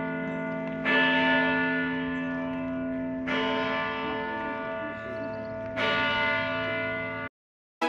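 Church bells ringing, a fresh stroke about every two and a half seconds, each one slowly fading under the next. The sound cuts off abruptly near the end.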